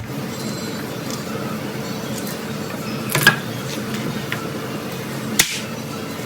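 Knife cutting baby carrots on a cutting board: a sharp knock about three seconds in and another near the end, over a steady low hiss.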